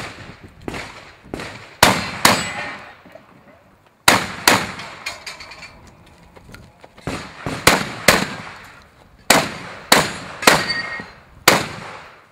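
Shotgun fired in a string of about ten loud shots, mostly in quick pairs about half a second apart, with short pauses between the pairs and fainter cracks in between.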